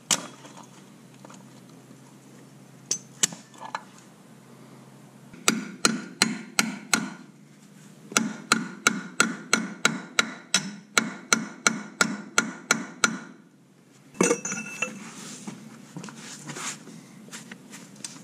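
Hammer blows on a box-end wrench set on a hydraulic line fitting of a mini excavator's final drive motor, striking it to break the fitting loose: sharp metal-on-metal strikes in a short run, a pause, then a longer steady run at about three to four a second. A scraping clatter follows near the end.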